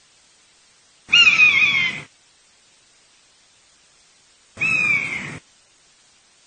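Buzzard calling twice, each a high cry of about a second that slides down in pitch, the second coming about three and a half seconds after the first.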